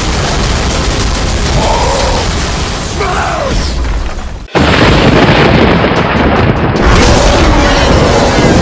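Loud, dense booming noise like explosion sound effects, with music underneath. It cuts out for an instant about four and a half seconds in and comes back louder.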